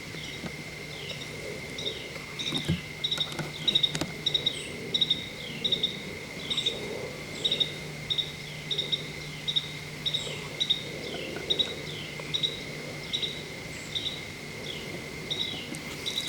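An animal chirping in a steady series, about two short chirps a second, each dropping in pitch, over a steady high-pitched tone and a faint low hum.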